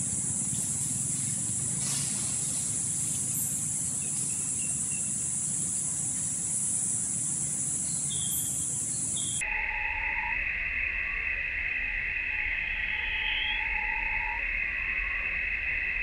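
Steady forest insect chorus, a high even shrilling that switches abruptly about nine seconds in to a lower-pitched drone with a low hum underneath, as if two recordings were spliced. A few short faint chirps sit on top.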